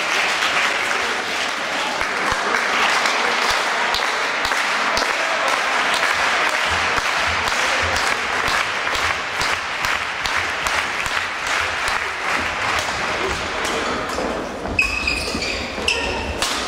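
Crowd applause in a sports hall, dense clapping that dies away near the end. As play resumes, a sharp hit and a few short squeaks follow: racket on shuttlecock and shoes on the court floor.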